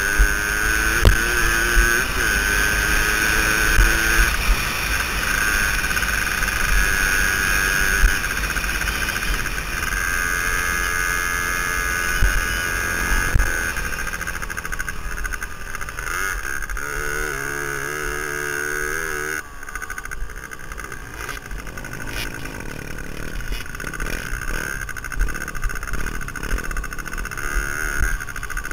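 Suzuki DS80's small two-stroke single-cylinder engine running under the rider, its pitch rising and falling with the throttle, with wind rushing over the microphone and scattered knocks from bumps in the dirt track. About two-thirds of the way through the engine eases off and the sound gets quieter.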